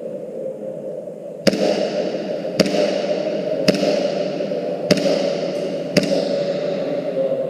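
Airsoft pistol fired five times at an even pace, about one shot a second, each a sharp crack.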